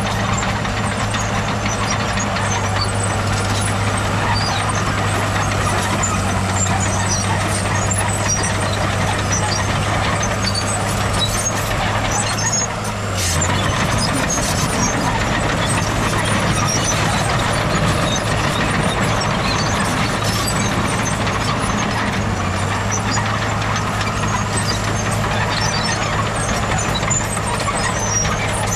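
Heavy diesel earthmoving machinery running steadily under load, with a brief drop in the engine note about halfway through.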